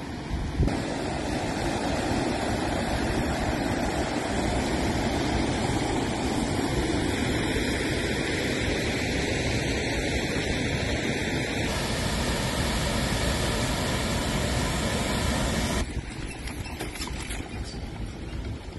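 Mountain river rushing over boulders: a steady roar of white water that drops in level near the end.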